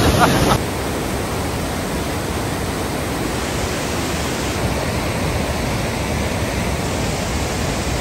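Whitewater river rapids rushing steadily over and between boulders, an even, unbroken noise of water.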